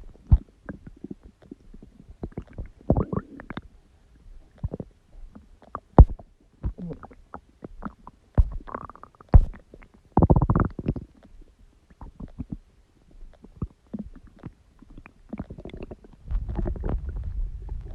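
A person's stomach growling and gurgling: irregular small pops and short gurgles, longer gurgles about three and ten seconds in, and a low rumble near the end.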